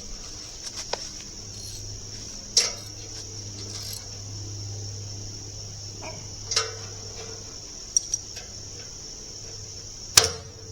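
Steady high-pitched insect chorus, with a few sharp knocks scattered through it, the loudest near the end.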